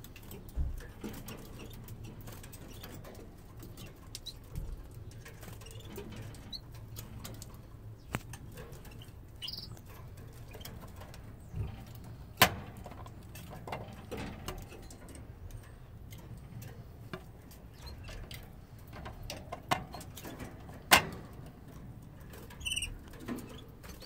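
Scattered sharp clicks and knocks from the plastic nest pan and wire cage being handled, the loudest about halfway through and again near the end. A short run of Lizard canary chirps comes near the end.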